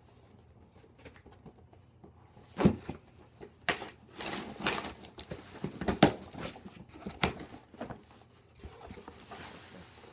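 Cardboard shipping box being opened and its packaging handled: a string of sharp knocks and crinkly rustles, the loudest about six seconds in.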